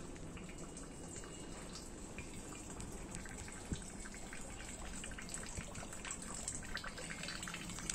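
Light rain falling and dripping: many small drop ticks over a steady hiss, with one sharper drip a little past the middle.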